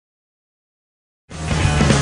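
Dead silence for a little over a second, then a TV programme's jingle for its logo vignette cuts in abruptly, marking the return from a commercial break.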